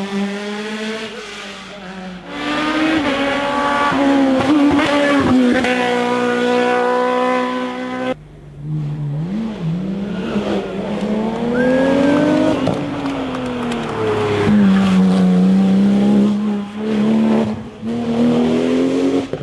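Race car engines at full throttle on a hill climb, revving up and dropping in pitch at each gear change. About eight seconds in the sound cuts to a second car, a Porsche 911-based GT car. It revs and shifts down for a corner, then accelerates away, shifting up.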